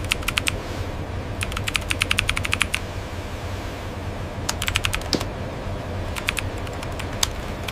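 Industrial machinery: a steady low hum with noise over it, broken by four runs of rapid sharp ticking, like a keyboard or a rattling mechanism.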